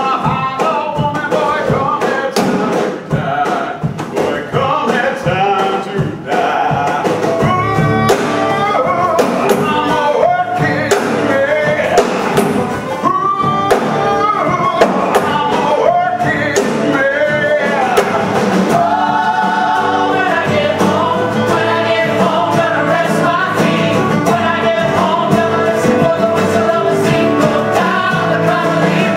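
Folk-rock song from a stage musical: several voices singing together over band accompaniment with sharp percussive hits.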